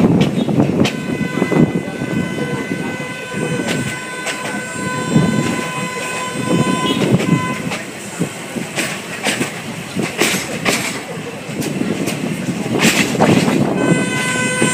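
Train horn sounding one long steady blast of about six seconds, starting about a second in, over the rattle and clack of the coach's wheels on the track. A second horn blast starts right at the end.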